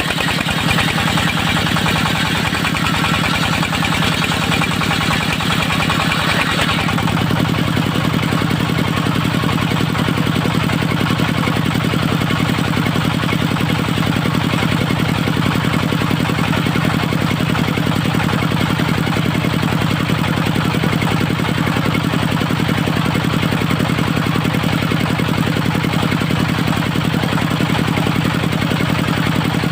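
Engine of a portable circular-saw sawmill running steadily. For the first six or seven seconds a high rasping hiss of the saw blade cutting teak rides over it, then the cut ends and only the engine runs on.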